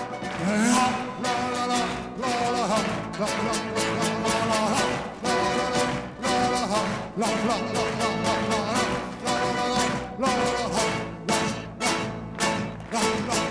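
An orchestra with bouzouki playing a Greek song live, with singing and a steady beat.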